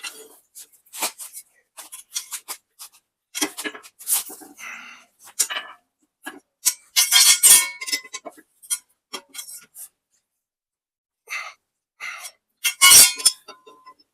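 Metal hand tools clicking and clinking on the stump grinder's cutter wheel as its tooth bolts are tightened, in irregular sharp knocks. Two louder clusters of clanks ring briefly, about halfway through and near the end.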